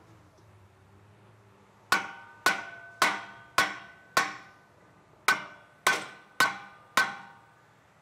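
A hammer striking a rear brake rotor to knock it loose from the wheel hub: nine sharp blows, five and then four after a short pause, about two a second, the cast iron rotor ringing after each hit.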